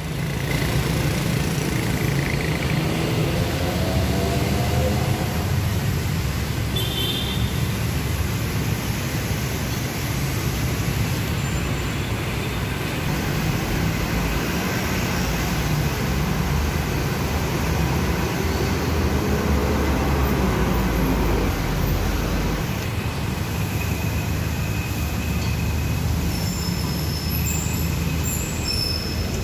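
Street traffic on a wet road: buses, cars and motorbikes passing, a steady low engine rumble under the hiss of tyres on wet pavement. A couple of times an engine's pitch rises as a vehicle speeds up, about two seconds in and again about twenty seconds in.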